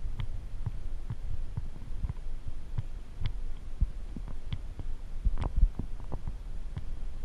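Underwater sound heard through a camera's waterproof housing: a steady muffled low rumble of moving water, with irregular soft clicks and knocks, a few a second.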